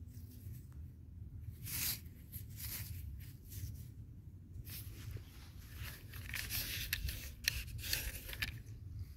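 Gritty scraping and rustling of sandy soil being rubbed and dug, with a denser run of scrapes in the second half over a steady low rumble.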